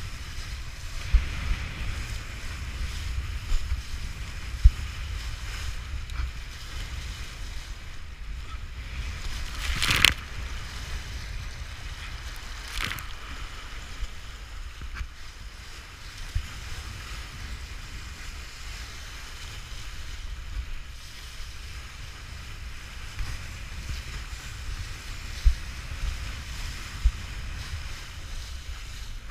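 Wind buffeting the action camera's microphone in gusty low rumbles, over the hiss of a kiteboard cutting through choppy water and spray. A louder splash about ten seconds in, and a smaller one a few seconds later.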